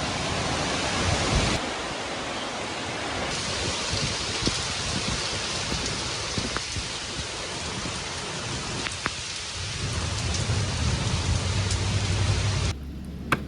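Heavy storm rain pouring steadily, with a low hum joining in during the last few seconds before the sound cuts off abruptly near the end.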